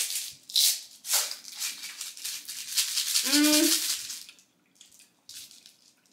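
Small hard candy pieces rattling in a plastic container as it is shaken and tipped into a hand, with a short rising hum from a person about three seconds in.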